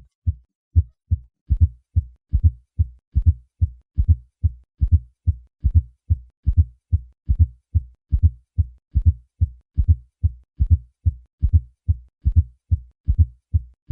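Heart sounds through a stethoscope with a fourth heart sound (S4 gallop): a soft, low thud just before each lub-dub, repeating in a steady rhythm of a little over one beat a second. An S4 is the sign of a stiff, poorly compliant ventricle, as from hypertension, aortic stenosis or cardiomyopathy.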